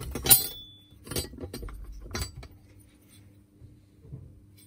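Metal clinks and knocks as a metal mounting plate is lifted off the nailer's housing: a sharp clink with a short ring just after the start, then a few lighter knocks about a second apart.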